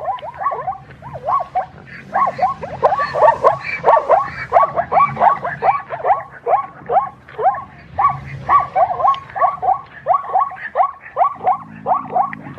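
Animal calls: many short, sharply pitched yelping calls in quick succession, about three a second and overlapping, as from several animals calling together.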